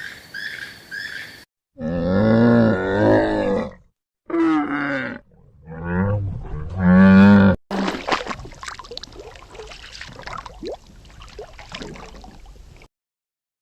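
An animal giving three loud, drawn-out calls with a clear pitch, the last the loudest, followed by several seconds of scratchy rustling and clicking. Before them, a quick series of short repeated chirps ends abruptly about a second in.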